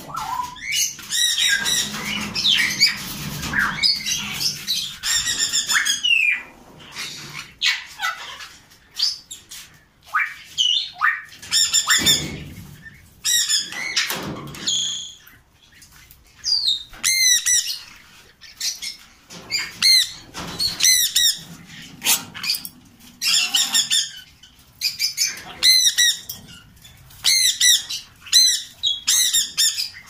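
Caged parrots, among them a sun conure, squawking: short harsh high calls in quick runs, with a lull about midway and then busier toward the end.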